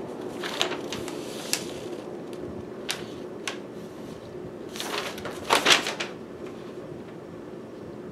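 A paper instruction leaflet being handled and unfolded, giving a few short clicks and then a louder burst of crackling rustles about five to six seconds in, over a steady background hum.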